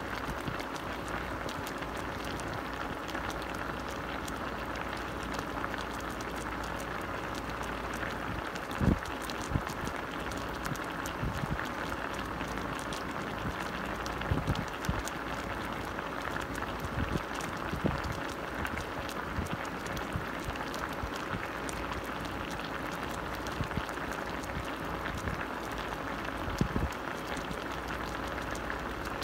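Chicken adobo simmering in a steel pot, the sauce bubbling steadily, with a few low thumps, the loudest about nine seconds in.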